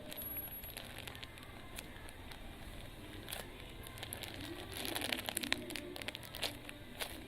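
Plastic packaging of a squishy toy crinkling and crackling as it is handled, in irregular clicks and rustles that get busiest about five seconds in.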